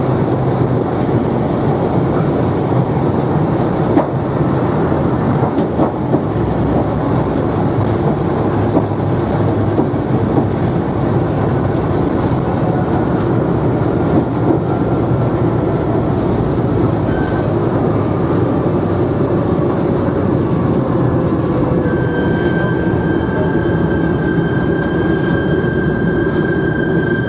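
Cabin noise inside a B-17 bomber on its landing roll: its Wright R-1820 Cyclone radial engines running, with tyre rumble from the runway, a loud steady drone. A faint whine falls slowly in pitch through the middle, and a steady high tone comes in near the end.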